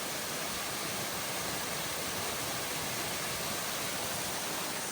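Steady rushing roar of a large waterfall, an even, unbroken wash of noise.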